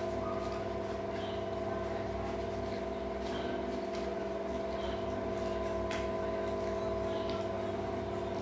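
A steady machine hum made of several held tones, with a single faint click about six seconds in.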